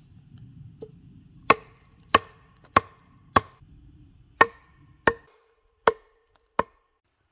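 Wooden stake being driven into the ground by blows from a hand-held log used as a mallet: eight sharp wood-on-wood knocks, roughly one every two-thirds of a second, with a short pause after the fourth.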